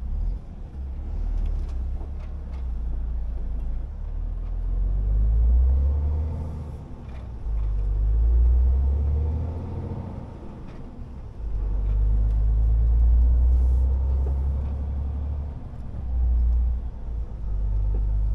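Diesel engine of a MAN TGX 470 truck, a straight-six, heard inside the cab while driving. Its low drone swells and eases several times as the truck speeds up and slows for the curves, and its pitch rises and falls in the middle.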